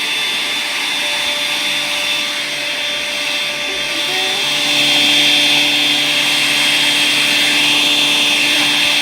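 Makita cordless paper-bag vacuum cleaner running steadily in high-power mode with a constant whine, getting a little louder about halfway through.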